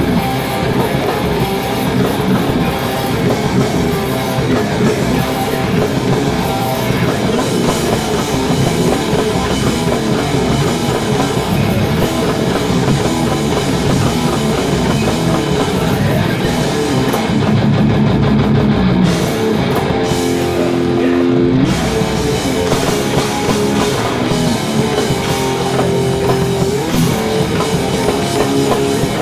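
Live heavy metal band playing loud, with fast drum kit and distorted electric guitar. About two-thirds of the way through the cymbals drop out for a moment and held guitar notes ring before the full band comes back.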